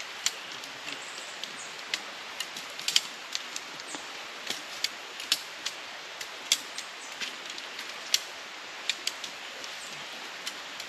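Campfire crackling: irregular sharp pops and snaps, a few each second, over a steady hiss.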